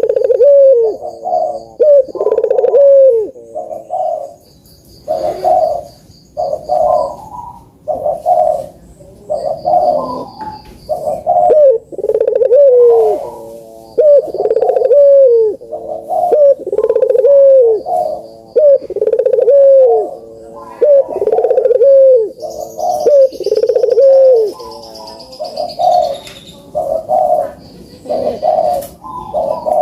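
Puter (collared dove) cooing over and over, about one coo a second, each coo dipping at its end, with faint high chirps of small birds behind it.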